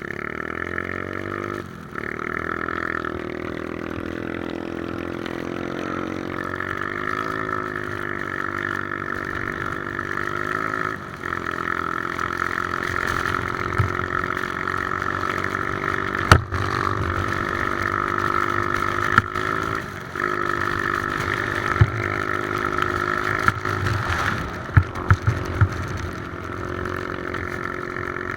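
Three-wheeler ATV engine running under way, its pitch rising and falling with three brief dips in engine speed. Several sharp knocks come in the second half.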